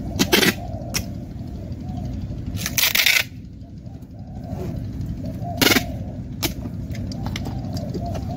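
Packing tape being pulled off a handheld dispenser and pressed onto a cardboard box: several short ripping screeches, the longest and loudest about three seconds in, over a steady low rumble.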